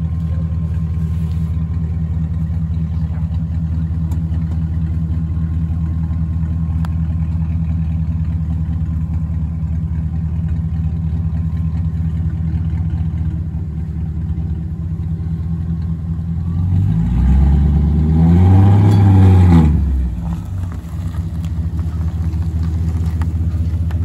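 BMW E39 540i's 4.4-litre V8, warmed up, idling steadily; about 17 seconds in it is revved once, the pitch rising and falling over about three seconds, then it settles back to idle.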